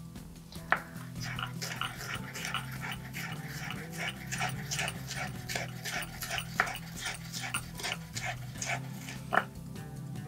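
Chef's knife slicing a green bell pepper (capsicum) into thick strips on a wooden chopping board: a quick, uneven run of cuts, with two louder knocks of the blade on the board about a second in and near the end. Soft background music underneath.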